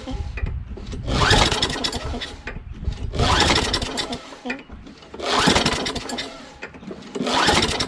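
Recoil pull-starter on a Craftsman push mower's Tecumseh engine yanked four times, about two seconds apart, each pull spinning the engine over briefly without it firing: the engine is cranking but not starting.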